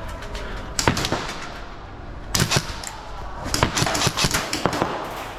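Airsoft guns firing in short bursts of sharp snaps: one burst about a second in, another around two and a half seconds, then a denser run of shots near the end.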